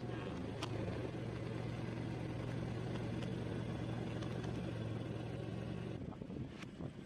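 Car engine running at low speed, a steady low hum, with a couple of faint clicks over it.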